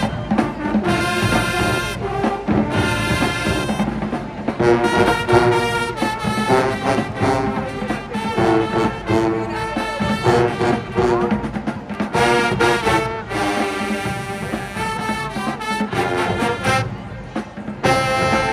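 High school marching band playing a field show: the brass section sounds loud sustained chords and a moving melody, with drums beating underneath.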